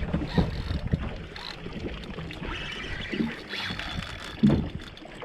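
Wind on the microphone and irregular knocks on a fishing boat, with one loud bump about four and a half seconds in.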